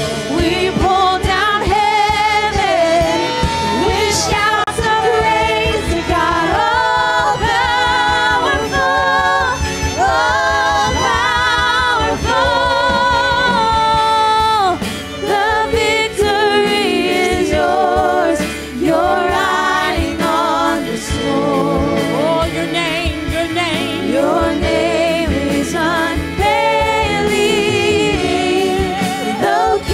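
Live contemporary worship music: a woman sings lead with a wavering vibrato over keyboard, electric guitar and drums.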